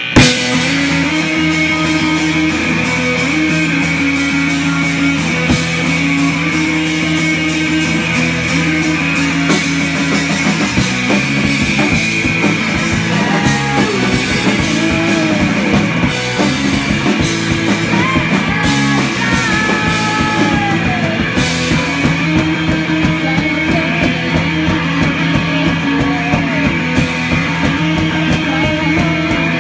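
Live punk rock band playing electric guitar, bass guitar and drum kit, all coming in together at the start. A woman sings over it partway through.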